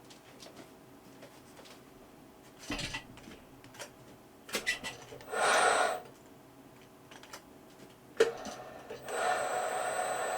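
Light clicks and rubbing from handling small parts. About halfway a brief whirr of an electric motor with a high whine, then a sharp click, then the same whirring starts again and keeps running.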